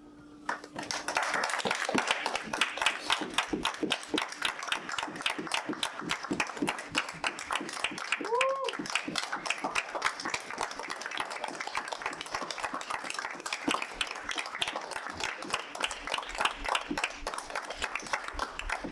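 Audience applauding, the clapping starting about a second in and building quickly to a steady dense level, with one short rising-and-falling whoop from a voice about halfway through.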